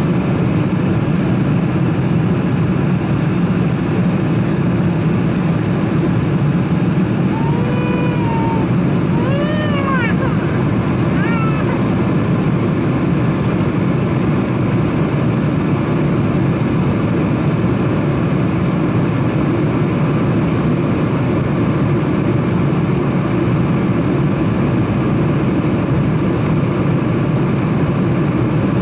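Steady cabin noise of a Boeing 747-400 airliner in flight over the wing: a low, even rumble of engines and airflow. About eight seconds in, three short high-pitched cries rise and fall one after another, over within about four seconds.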